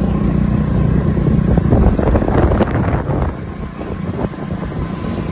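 Wind rushing over a phone microphone on a moving two-wheeler, over the low rumble of engine and tyres on the road. Crackling from cloth rubbing against the microphone is loudest in the first half, and the sound eases a little after about three seconds.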